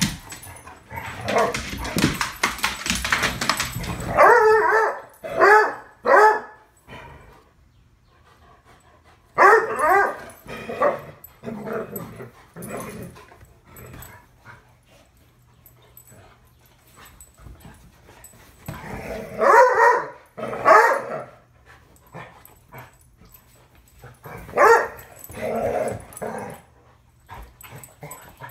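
Two dogs play-wrestling, barking and yipping in short bunched bursts, with scuffling and rough noise in the first few seconds and quieter gaps between the bursts.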